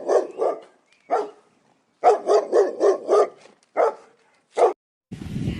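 Dog barking: quick runs of several barks, with single barks between and short silent gaps.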